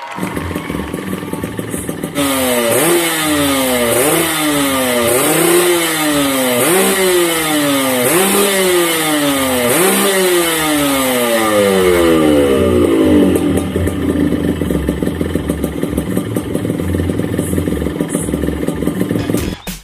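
Yamaha RX King two-stroke single-cylinder motorcycle engine being revved: the throttle is blipped about every one and a half seconds, the pitch jumping up and falling back each time, then it runs more steadily for the last third.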